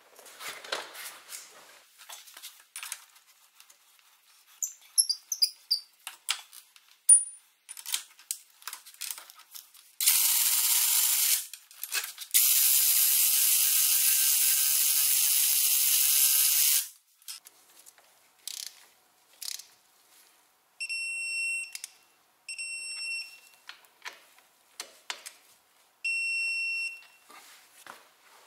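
Metal tools clinking and knocking, then a power tool runs in two stretches of about two and four seconds. Near the end come three short, high electronic beeps.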